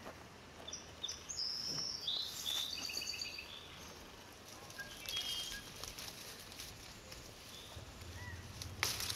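Small birds chirping in short, high calls during the first few seconds, over leaves rustling and crackling as hands pick among a persimmon tree's branches, with a sharp crackle of foliage near the end.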